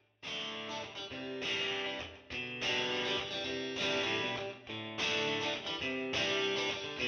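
Background music led by plucked and strummed guitar.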